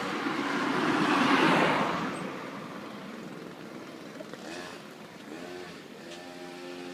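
Two-stroke chainsaw engine of a homemade go-kart running. It grows louder and noisier for about two seconds, peaking around a second and a half in, then drops back to a quieter, steady running note whose pitch wavers near the end.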